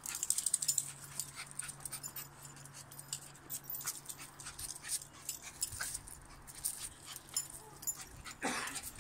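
West Highland terrier puppies and Cairn terriers scuffling in play on paving slabs: many quick clicks and scrabbling sounds, with a short louder dog sound near the end.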